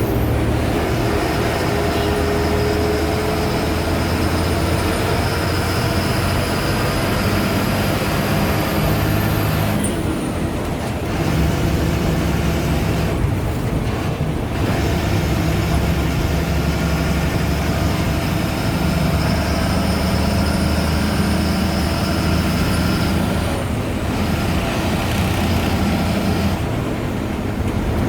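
Ashok Leyland BS4 bus's turbocharged diesel engine pulling steadily, with a high turbo whistle that climbs slowly and drops away about ten seconds in, then climbs again and falls away near the end.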